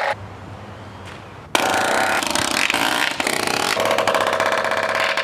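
Pneumatic palm nailer rapidly hammering nails through galvanized steel hurricane straps into wooden roof rafters. A burst stops right at the start, and after a short pause a long rapid-fire run begins about a second and a half in.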